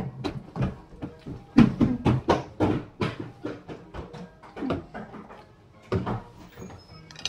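A run of short clicks and knocks from a red paper drink cup being handled and tipped up to drink from.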